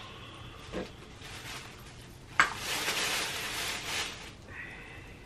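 Plastic bag crinkling and rustling for about two seconds while items are pulled out of it, starting with a sharp click; a soft knock comes just under a second in.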